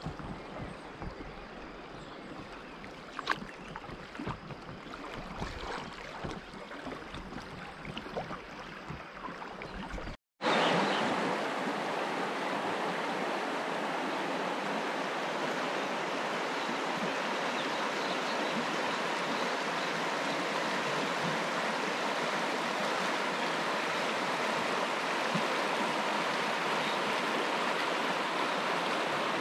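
Water lapping and splashing around a canoe on a river, with scattered light knocks and some low rumble. After a sudden cut about ten seconds in, a steady, even rush of a shallow river running fast over stones in a riffle.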